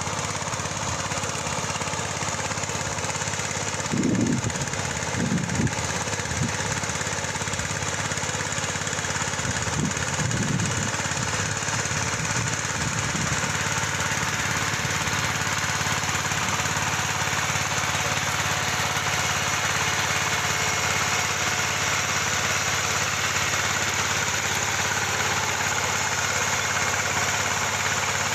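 Engine of a ploughing machine running steadily in the field, with a few brief swells in the first ten seconds.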